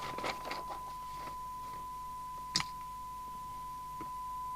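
Steady 1 kHz test tone from the FM CB receiver, demodulating the signal generator's test signal during alignment, with a few light clicks near the start and one sharper click about two and a half seconds in.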